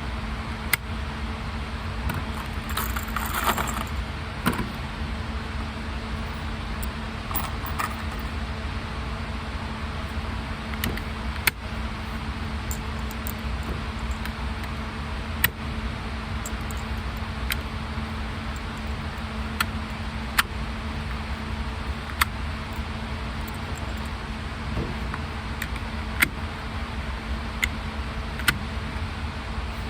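Road noise inside a moving car's cabin, a steady low rumble with a faint hum, broken by sharp clicks and rattles every second or few.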